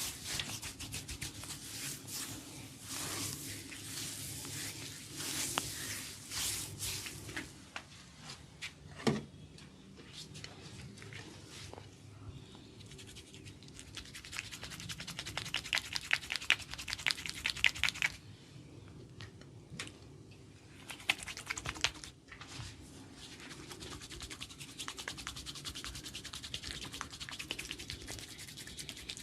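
A barber's fingers rubbing and scratching an oiled scalp and hair close to the microphone, with a run of fast scratching strokes about halfway through.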